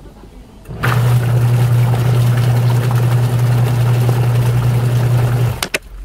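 Top-loading washing machine agitating soapy water: its pulsator motor starts about a second in, hums steadily as the water churns, and stops near the end, the usual on-off stroke of a wash cycle. The motor is now turning the pulsator normally after its faulty capacitor was replaced. Two sharp clicks follow the stop.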